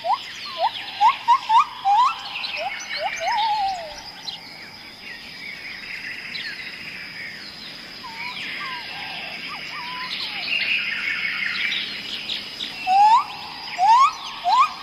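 Several songbirds chirping and singing. Quick runs of short rising whistles come in the first few seconds and again near the end, with a busy layer of higher chirps between them and a steady high thin tone underneath.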